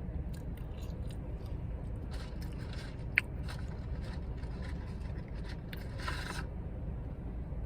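Quiet eating sounds, small mouth clicks and a short rustle about six seconds in, over the steady low hum of a car's running engine.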